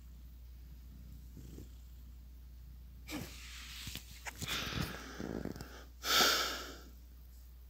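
Domestic cat purring faintly, then rustling and knocks as the phone is moved about, with a loud rushing burst about six seconds in that fades within a second.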